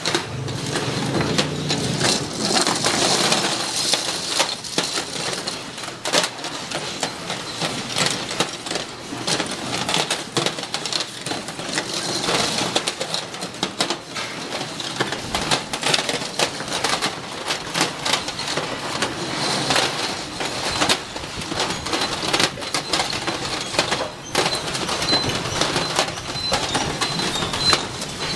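Constant clatter of metal concealed cabinet hinges being handled on a factory floor, many small clinks and knocks overlapping. A faint, steady, high tone comes and goes, clearest near the end.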